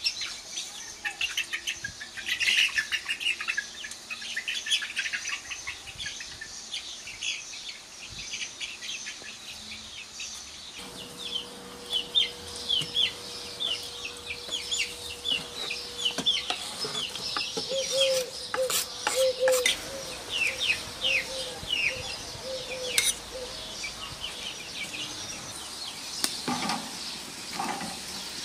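Chickens clucking and small birds chirping over and over, with a long low call in the middle and a few sharp knocks.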